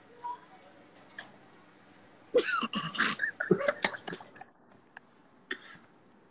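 A person's voice making a burst of vocal sounds lasting about two seconds, starting a couple of seconds in, with a short sound near the end.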